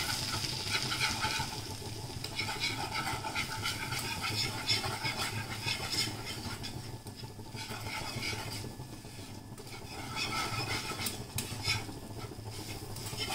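Wire whisk stirring and scraping around a non-stick frying pan in quick, irregular strokes, with a couple of brief pauses, as flour is whisked into melted butter to cook a roux for white sauce.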